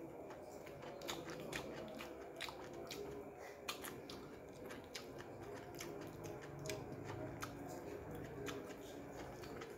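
Close-up chewing of a mouthful of raw cucumber: irregular crisp crunches and wet mouth clicks, one or two a second.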